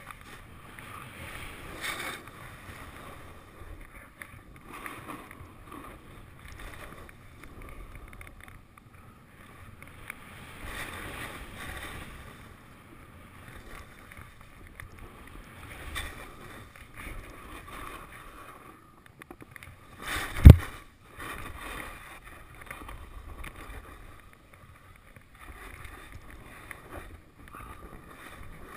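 Skis swishing and scraping through soft spring snow, the hiss swelling and fading with each turn. One sharp, very loud knock comes about two-thirds of the way through.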